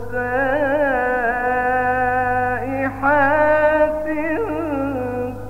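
A male Quran reciter's voice in melodic (mujawwad) recitation, drawing out a long phrase with held notes and quick ornamental turns, with a brief catch about three seconds in. A steady low hum sits underneath.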